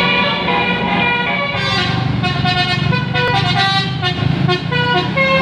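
A bus's 'telolet basuri' multi-trumpet musical air horn playing a tune in separate notes, which turn shorter and quicker about a second and a half in, over a steady low hum from the bus.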